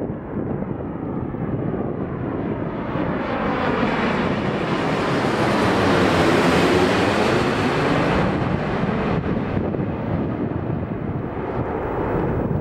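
Boeing 787-8 airliner on final approach passing low overhead with its gear down. The jet noise and rushing air swell to a peak about six seconds in, with a sweeping, phasing quality as it goes over, then ease off as it moves away. Wind buffets the microphone.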